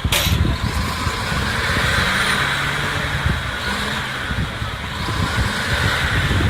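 Diesel engine of heavy earth-moving machinery running steadily, a low rumble with a hiss over it. There is a sharp click right at the start.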